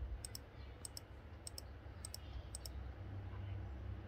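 Sharp double clicks of playback controls stepping through CCTV footage frame by frame, five of them about half a second apart that stop near the end, over a low steady hum.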